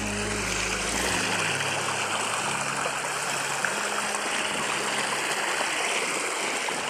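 Shallow river running over rocks, a steady rushing babble of water breaking around stones. Background music fades out about a second in.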